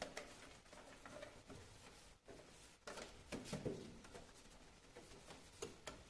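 Faint, irregular rubbing and rustling of a cloth wiping the stainless-steel group heads and drip tray of an espresso machine, with a louder stretch of scrubbing about three seconds in.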